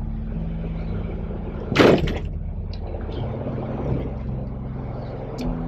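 Car driving on a badly potholed highway: steady engine and road noise, with one loud jolt and rattle about two seconds in as a wheel hits a pothole, and a few lighter knocks after it.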